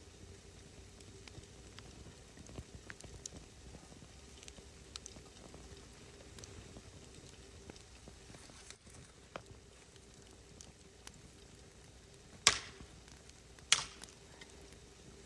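Faint crackling of a wood fire, with scattered small pops over a faint steady hum. Two loud sharp knocks come about a second apart near the end.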